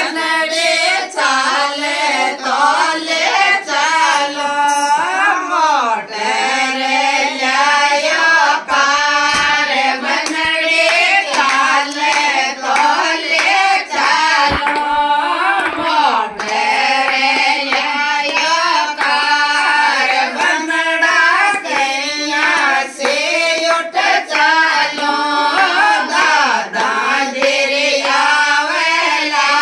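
A group of women singing a Rajasthani banna-banni wedding folk song from Shekhawati.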